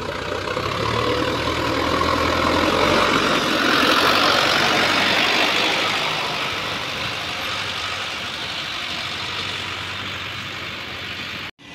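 Diesel engines of a farm tractor and a JCB backhoe loader running, with a tractor pulling a loaded trolley past. The engine noise swells about four seconds in, then eases off.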